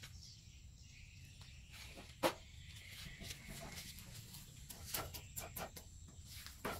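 Knife cutting and whittling a small bamboo stick: scattered short clicks and scrapes, with one sharp knock about two seconds in and a few more clicks around five seconds in, over a faint steady outdoor hiss.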